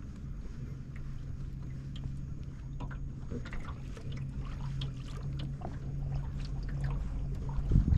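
Small boat motor running with a steady, even hum, with scattered light clicks and ticks over it.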